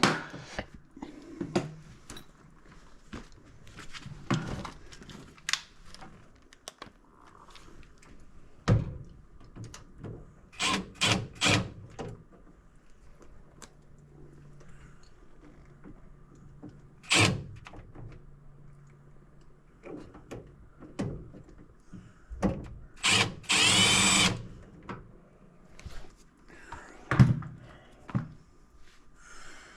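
A handheld power driver runs in short bursts, with one longer run of about a second and a half near the end, among knocks and clatter of metal parts being handled while the blower assembly is taken apart.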